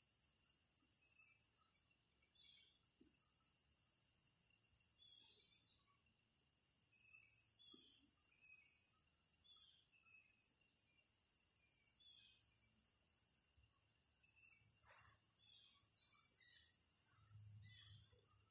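Faint insect chorus: a very high, buzzing trill that sings in bouts of three or four seconds with short breaks, over a steady chirring of other insects. A single sharp click about fifteen seconds in.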